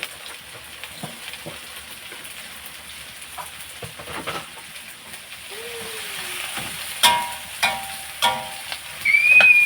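Stir-fry sizzling in a wok while a spatula scrapes and tosses the food. Near the end come several sharp, ringing clanks.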